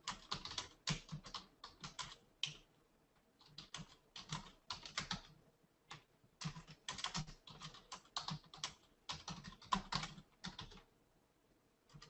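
Typing on a computer keyboard: bursts of rapid keystrokes with a few brief pauses.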